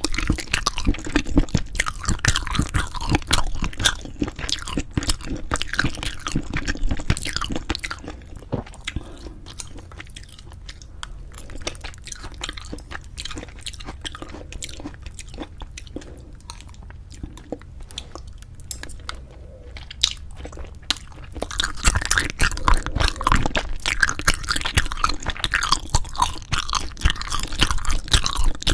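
Close-miked eating sounds of braised spicy chicken with cheese: biting and chewing, busiest for the first eight seconds and again over the last seven, quieter in between.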